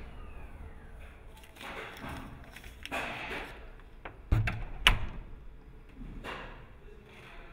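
A wooden apartment door pushed shut against its frame, giving two sharp knocks about half a second apart near the middle, with softer scuffing noises before and after.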